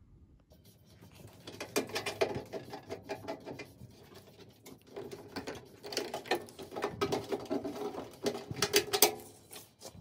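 Rapid clicking, rattling and scratching of metal parts being handled and pulled out of a scrap microwave, in two stretches.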